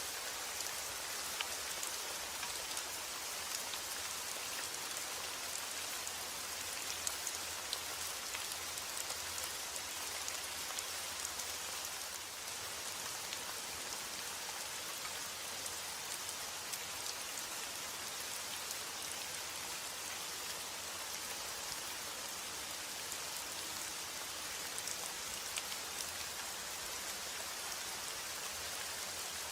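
Steady rain falling, an even hiss of many drops with occasional individual drip ticks.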